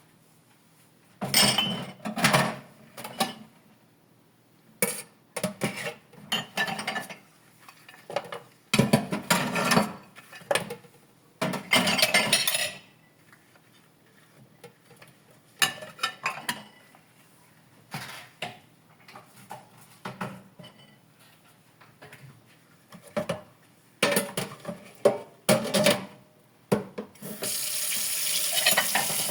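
Dishes being washed by hand in a sink: irregular splashing and clatter of dishes, with water running steadily from a tap near the end.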